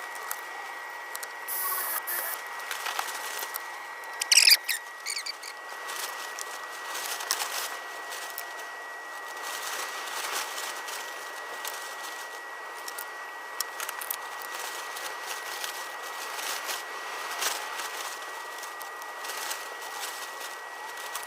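Metal lantern parts being handled and fitted at a workbench, with irregular small clicks and scrapes. There is a short, sharp squeak about four and a half seconds in, over a faint steady high tone.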